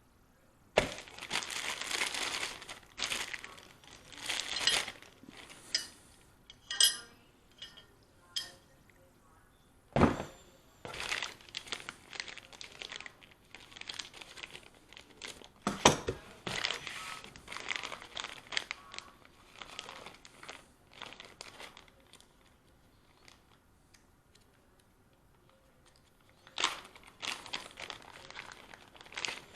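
Crinkling and rustling handling noise in irregular bursts, with a few sharp knocks and a quiet spell in between.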